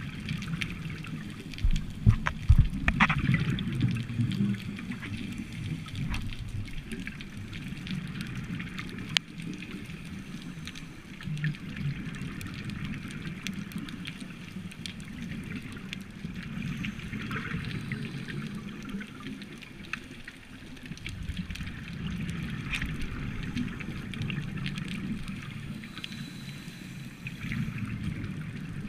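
Scuba regulator exhaust bubbles gurgling underwater in surges every few seconds with each breath, loudest about two to three seconds in, with scattered fine clicks throughout.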